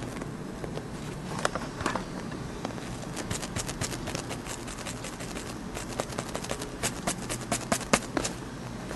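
Sharp clicks of a finger pressing a smartphone's buttons over and over, a couple of clicks at first, then several a second for about five seconds; the phone is frozen and does not respond to the presses. A steady low hum runs underneath.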